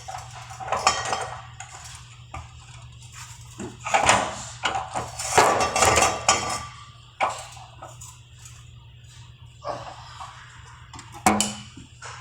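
Snap-on MIG welder laying short tack-weld bursts on bare steel: irregular crackling spurts about four seconds in and again from about five to six and a half seconds, with metallic clinks and a sharp click near the end over a steady low hum.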